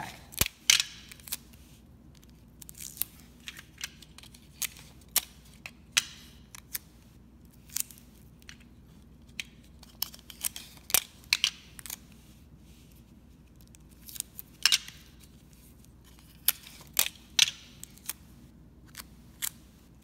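Clear Scotch tape being pulled off a handheld dispenser and torn on its cutter, with scattered sharp clicks, snaps and short rasps of tape handling in small clusters.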